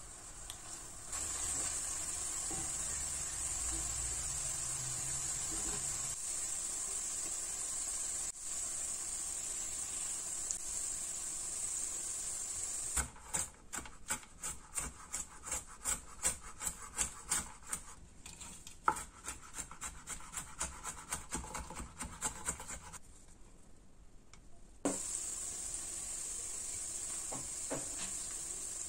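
Minced beef and green onion sizzling in a frying pan while a silicone spatula stirs them. About halfway through, a knife chops walnut kernels on a wooden board in a long run of rapid strikes. After a short quiet gap the pan sizzles again as the walnuts go in.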